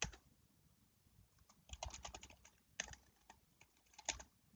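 Faint typing on a computer keyboard: single key clicks and short quick runs of keystrokes as a word is typed in.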